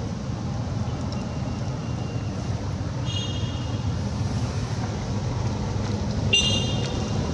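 Steady low outdoor background rumble, with two short high-pitched squeaky calls, one about three seconds in and a louder one just after six seconds.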